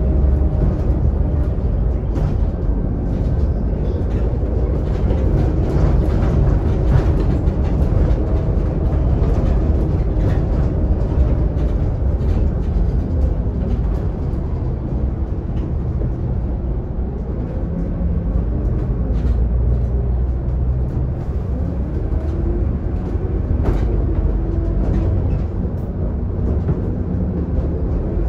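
Scania K280UD double-decker bus's five-cylinder diesel engine and drivetrain heard from inside the lower deck: a steady low rumble, with the engine note rising and falling a few times in the second half as the bus pulls through traffic.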